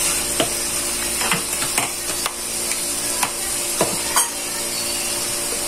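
Spice paste sizzling steadily as it fries in oil in a wok, with a handful of light clicks scattered through.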